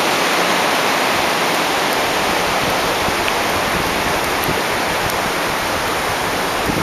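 Steady hiss of ocean surf washing onto a flat sandy beach.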